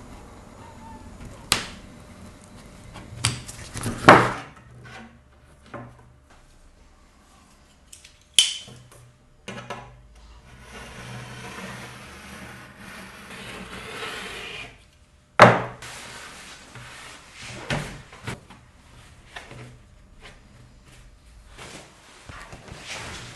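Hand work at a sewing table: scattered sharp clicks and knocks of tools and parts being handled, with a stretch of rustling, scratchy noise in the middle as the rubber seal is taken back out of the sewn fabric.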